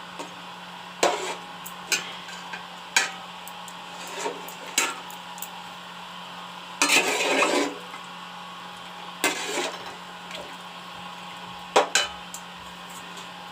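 Spoon clinking and scraping against a cooking pot while stirring chicken curry gravy: scattered short knocks, with a longer scrape about seven seconds in. A steady low hum runs underneath.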